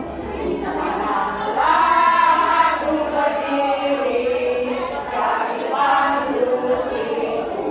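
Women's choir singing, with two long held phrases whose melody steps downward.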